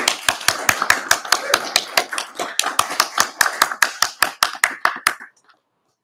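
A small group of people clapping, with the individual claps distinct, thinning out and stopping about five seconds in.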